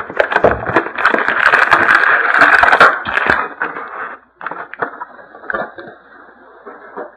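Sealed hobby box of hockey cards being torn open: dense crackling and tearing of wrapper and cardboard for about three and a half seconds, then a few scattered clicks and rustles of handling.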